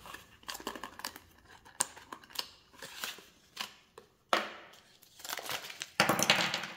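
Clear plastic packaging of a squid jig being opened and handled: a string of small clicks and crackles, with a longer rustling scrape about four seconds in and a louder one near the end.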